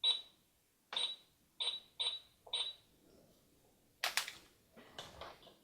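Barbie Blinging Cash Register toy beeping five times in quick succession as its buttons are pressed to ring up an item. About four seconds in comes a short plastic clack, followed by faint handling rustle.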